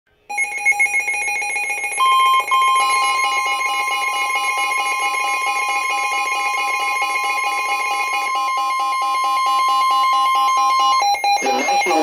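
Midland weather alert radios sounding a severe thunderstorm warning alarm: a rapid pulsing beep, joined about two seconds in by a steady high alert tone, which stops near the end as a broadcast voice starts.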